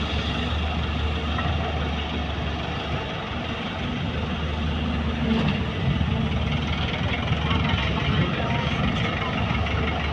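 Heavy diesel engines of dump trucks and a JCB excavator running steadily, a low engine drone with a dump truck pulling slowly forward.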